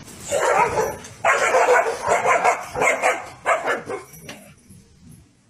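A dog barking, a run of about six loud barks over the first four seconds that die away near the end.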